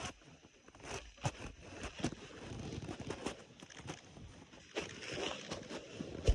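Human stomach growling: sparse, raspy gurgles and crackling clicks in an irregular run, with a sharp pop near the end.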